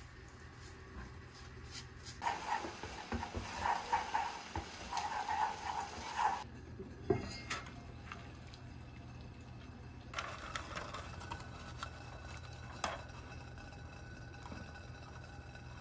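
Kitchen food-preparation sounds: a few seconds of busy, choppy noise, then scattered sharp clicks and clinks of utensils against dishes.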